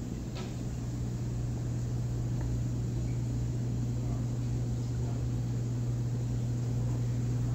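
Steady low hum with a background hiss from the aquarium pumps and filtration running in a store full of fish tanks, with a light click about half a second in.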